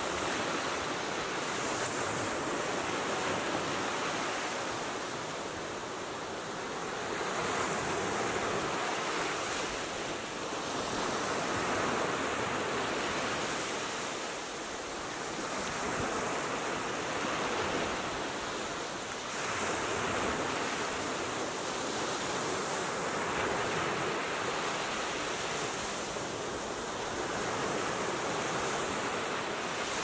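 Small ocean waves breaking and washing up a sandy beach: a continuous surf rush that swells and eases every few seconds as each wave comes in.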